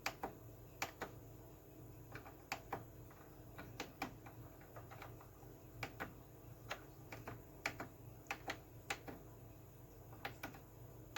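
Faint, irregular sharp clicks, one or two a second and some in pairs, over a low steady hum.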